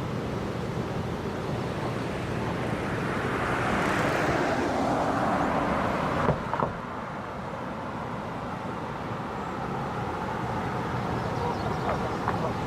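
A road vehicle passes by: its tyre and engine noise swells over about three seconds and falls away, and two sharp knocks come just as it goes. Steady traffic noise runs underneath.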